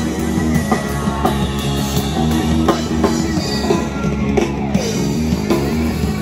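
Rock band playing live, electric guitar over a drum kit with a steady beat.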